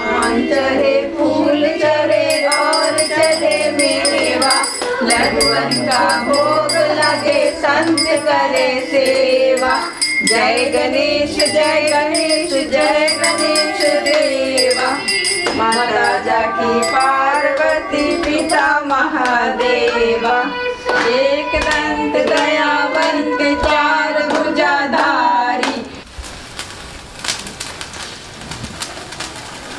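A devotional song, a singing voice over rhythmic jingling percussion. About four seconds before the end it gives way to the fizzing, crackling hiss of a lit sparkler.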